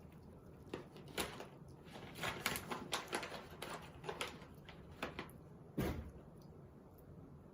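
Pet hedgehog crunching dry food, a quick irregular run of small crisp crunches and clicks, with one louder knock about six seconds in.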